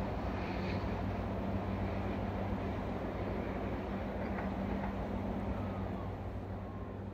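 NSW TrainLink XPT diesel power car and carriages running away from the listener: a steady engine drone over wheel and rail rumble, starting to fade near the end as the train recedes.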